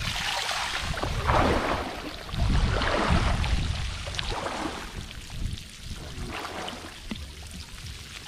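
Water splashing and sloshing in a shallow field channel, in several bursts over the first four seconds and quieter after.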